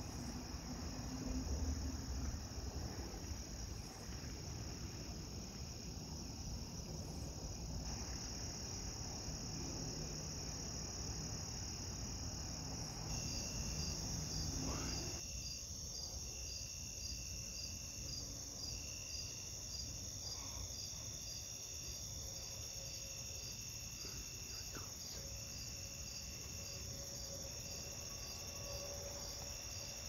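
Night chorus of crickets: a steady high trill overlaid with rapid pulsing and a lower chirp repeating about once every second and a half. Low rumbling noise sits underneath and eases off about halfway through.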